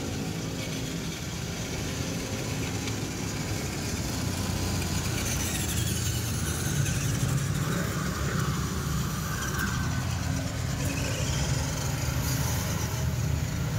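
Small RC crawler trucks' electric motors and gearboxes whirring faintly as they drive over concrete, over a steady low rumble.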